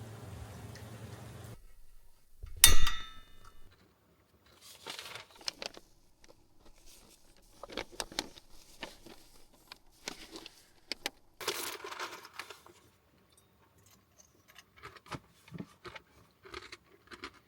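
A sharp metallic clink with a brief ringing tail near the start, followed by scattered light clicks, taps and rustles of small objects being handled.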